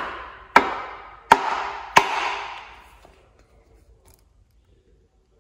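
The butt of a wooden hammer handle knocking the oil pump onto a Honda D16 engine block to seat it on its dowels. Four sharp knocks about two-thirds of a second apart, each ringing briefly.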